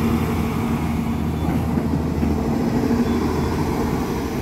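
Hyundai R215L excavator's diesel engine running with a steady low drone while the machine swings on its rebuilt swing drive. No grinding is heard from the swing gearbox, which points to a good repair.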